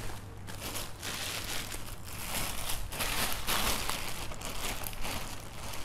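Clear plastic bags crinkling and rustling as shoes wrapped in them are handled and pulled out, in uneven crackles.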